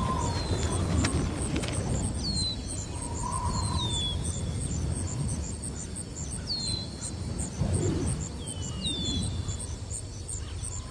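Shoreline ambience: an insect chirping in an even rhythm of about three pulses a second, with short downward-sliding bird calls now and then, over a steady low rumble.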